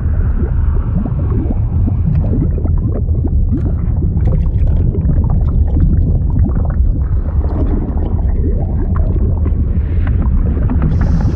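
Liquid sound effect: a steady deep rumble with many short irregular pops, like bubbling and gurgling water.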